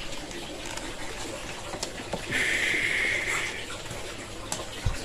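Handheld hairdryer blowing air at close range onto the damp fabric seat of an office chair, a steady rushing hiss. It grows louder and brighter for about a second a little past two seconds in, with a few light knocks from handling.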